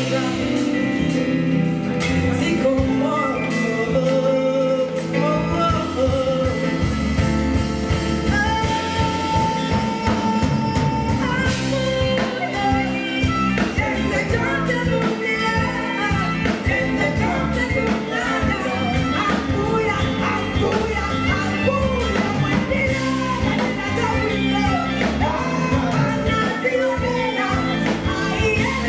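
Live band playing an Afro-soul song with a steady beat while a woman sings lead vocals.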